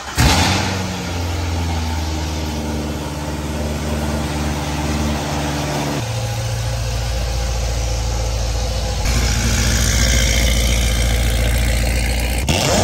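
Chevrolet Corvette engine starting with a quick burst, then idling steadily. The engine note turns abruptly deeper about six seconds in and rougher about nine seconds in.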